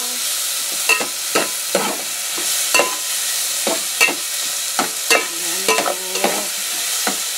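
Onion, garlic and tomato sautéing in a metal pot with a steady sizzle, while a metal spoon stirs and scrapes the pot, clinking against its side about once or twice a second.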